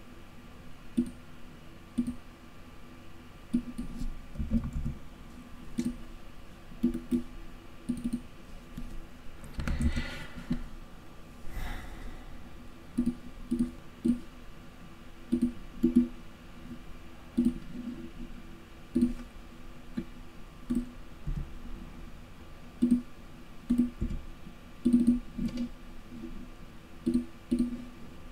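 Computer mouse buttons clicking at irregular intervals, about one click a second and some in quick double-click pairs, over a faint steady hum.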